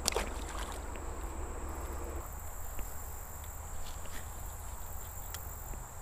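Steady high-pitched insect drone, with a soft low rumble underneath and one sharp click right at the start.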